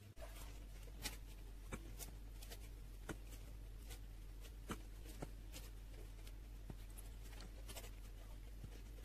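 Bananas being peeled by hand over a stainless steel bowl: faint soft rustling with scattered light clicks, over a steady low hum.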